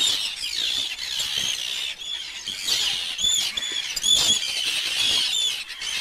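A flock of seabirds calling overhead: many short, high, arching calls, overlapping and repeated, with the loudest about four seconds in.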